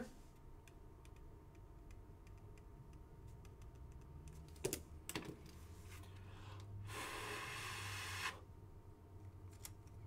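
Faint handling of trading cards and packaging on a table: scattered light clicks, two sharper ticks around the middle, then a second or so of scraping rustle, like card stock and plastic rubbing together.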